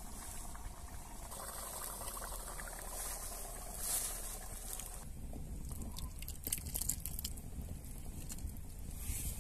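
Wood campfire crackling under a stone cooking hearth, then hot meat broth poured from a metal pot into a wooden bowl, with a trickle of liquid and a few sharp clicks in the second half.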